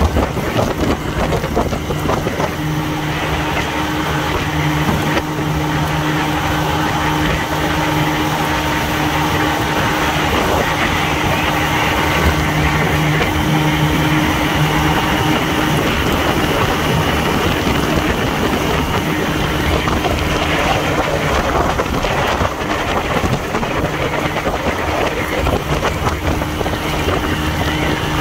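1968 Evinrude 18 hp two-cylinder two-stroke outboard running at a steady speed under way, pushing an aluminium boat, on a test run after a gearcase rebuild. Wind buffets the microphone, with water rushing along the hull.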